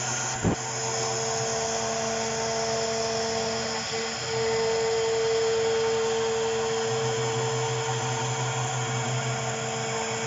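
ABT-6090-H small CNC router running, its spindle giving a steady high whine over a lower hum and cutting noise. There is a sharp click about half a second in. About four seconds in the sound gets louder and the whine steadier, and the lower hum drops away for a few seconds before returning.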